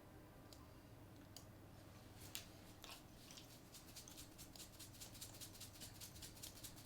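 Faint clicking at a computer, a few scattered clicks at first, then a quick run of several clicks a second from about three seconds in, over near-silent room tone.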